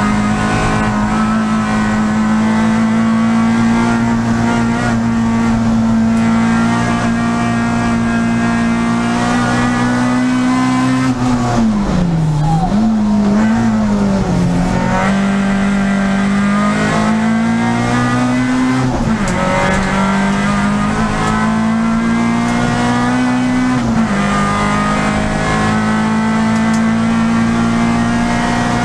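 Peugeot 306 Group A race car's four-cylinder engine heard from inside the cabin, held at high revs under full load. Near the middle its pitch dips and wavers as the car slows for a tight bend, and twice later it drops sharply and climbs again at gear changes.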